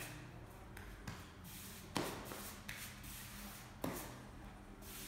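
Grout float scraping and wiping grout across the joints of floor tiles: a soft, irregular rubbing with two sharper scrapes, about two seconds and about four seconds in.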